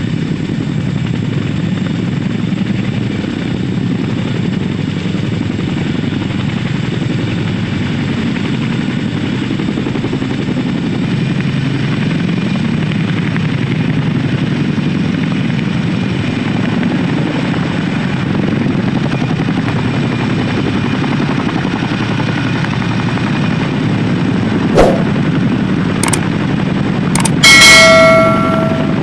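Boeing CH-47 Chinook tandem-rotor helicopters hovering while lifting sling loads: a steady, deep rotor and engine noise. Near the end come a few sharp clicks and a loud ringing bell chime.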